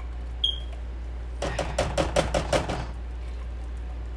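A short high metallic clink, then a quick run of about eight sharp knocks, some six a second, as a can of cream of chicken soup is tapped and scraped out into the cooking pot.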